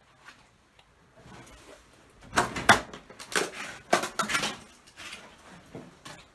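Glass and debris clinking and crunching, a string of sharp clicks and scrapes starting about two seconds in and thinning out near the end.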